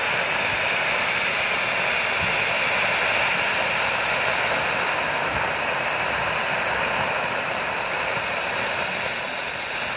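Several firework fountains on a frame carried by a person, spraying sparks with a loud, steady hiss that eases a little toward the end.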